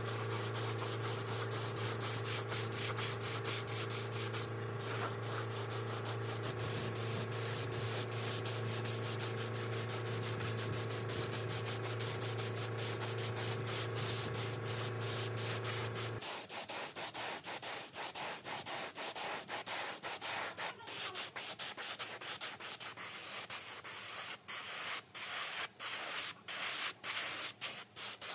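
Sanding with a steady electric motor hum under the abrasive noise for about the first sixteen seconds. Then the hum stops suddenly and the rubbing goes on in short strokes with brief breaks.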